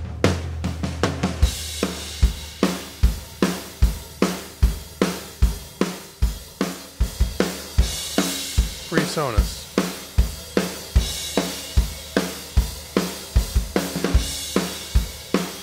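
Recorded drum kit track playing a steady beat, kick and snare about two hits a second with hi-hat and cymbals, compressed on the drum bus by a Tube-Tech CL 1B compressor plugin. A cymbal wash comes in about a second and a half in.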